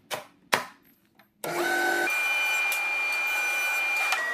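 Jointer starting up with a rising whine about a second and a half in, then running steadily as a board is fed across its cutterhead. Before it starts, two sharp knocks in near quiet.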